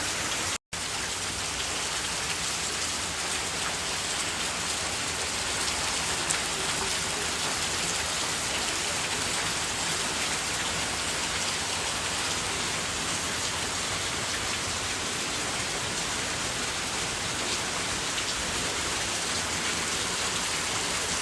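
Steady rain falling, an even hiss of drops that holds level throughout, with a brief cut to silence about half a second in.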